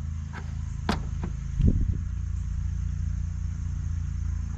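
A steady low engine hum, like a vehicle idling, with a few sharp metal clinks about a second in and a short knock just after, from wrenches working on a hydraulic fitting.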